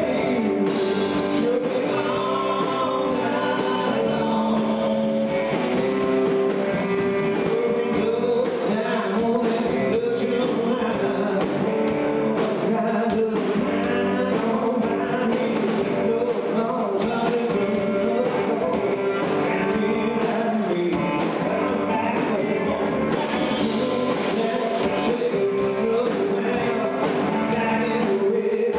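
Country-rock band playing with singing, guitar and drums at a steady level throughout.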